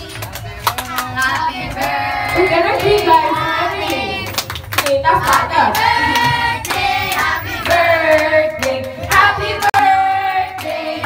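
A group of people, children among them, singing a birthday song to a child with hands clapping along.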